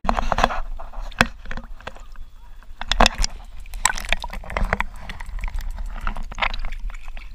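Water sloshing and gurgling, heard through a microphone held under the lake surface, with irregular knocks and clicks throughout.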